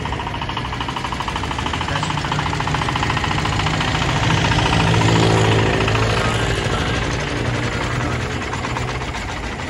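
Loader rickshaw fitted with a converted Petter diesel engine of about 1000 cc, running with a rapid, even beat. It grows louder as the rickshaw drives up close, is loudest about halfway through, and eases off near the end.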